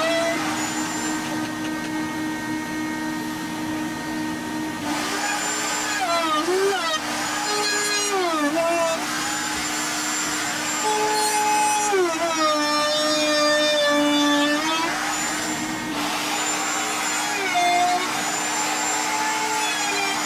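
Handheld wood router running as it trims the edges of a wooden subwoofer box, its motor pitch dipping under load and recovering again and again. Underneath is the steady whine of the dust-extraction vacuum hooked to the router.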